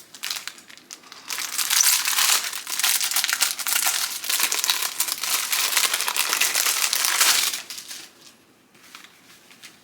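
Packaging crinkling and rustling as the makeup-brush pouch is unwrapped by hand, a dense crackle lasting about six seconds that dies down near the end to faint handling.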